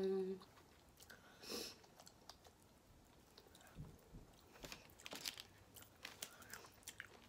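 Close-miked eating: a brief closed-mouth hum at the start, then chewing and biting at snow crab legs with scattered small crunches and clicks.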